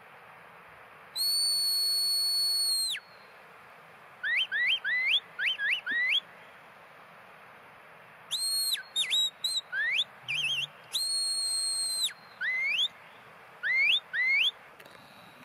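Sheepdog handler's whistle commands to a working dog on sheep. A long, steady high whistle drops away at its end, then comes a run of short rising whistles. Falling and rising notes with a quick warble follow, then another long steady whistle and a few more short rising calls.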